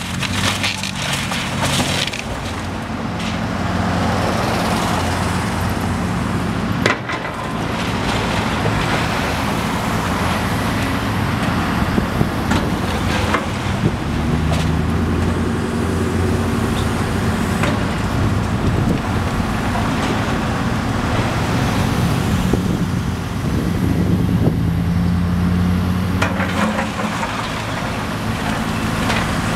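Long-reach demolition excavator's diesel engine running and revving up and down as it works, with a few sharp cracks and knocks of debris.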